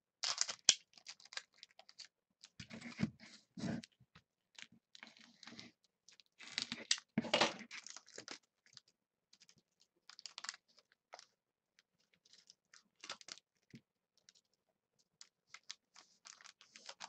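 Trading cards handled by hand, with a foil card pack: irregular light clicks and flicks of card stock and short crinkling rustles of the wrapper.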